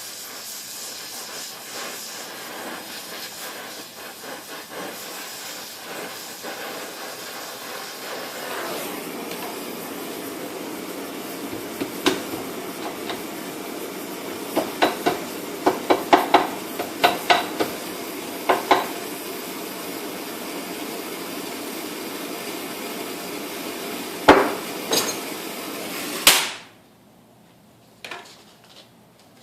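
Gas torch hissing steadily while heating a steel strip, with a run of sharp metal-on-metal hammer knocks in the middle and two more later as the hot metal is worked. The hiss cuts off suddenly near the end as the torch is shut off.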